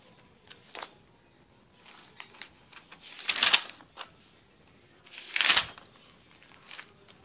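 Pages of a spiral-bound notebook being turned by hand: two loud paper flips, about three and five and a half seconds in, with small rustles and taps between them.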